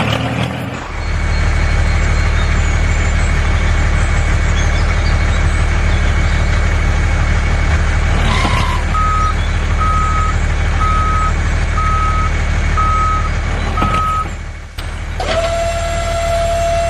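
Steady engine drone with a reversing alarm beeping about once a second for several seconds. After a short break, a steady high tone starts.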